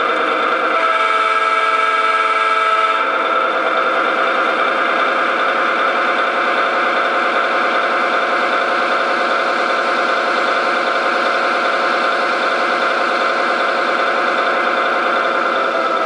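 Sound system of a large-scale model B&O E8 diesel locomotive playing a steady diesel engine sound through its small onboard speaker, with no deep bass. The sound changes character about three seconds in, then runs on steadily.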